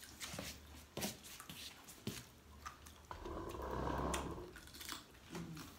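Eating sounds: scattered light clicks and taps of shells and food being handled, then, about three seconds in, a grainy chewing noise lasting a second or so as crisp fried seafood is eaten.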